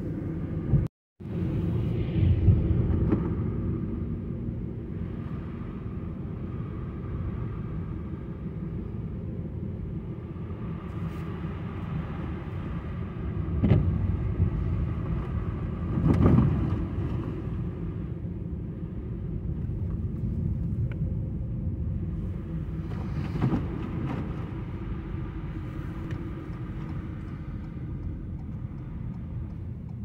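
Car driving on wet, slushy roads: a steady low rumble of tyres and engine heard from inside the car, with a few louder swells and a brief dropout about a second in.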